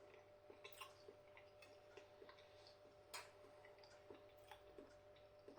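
Near silence with faint, irregular small clicks and smacks of a person chewing a mouthful of paneer, the clearest about three seconds in, over a faint steady hum.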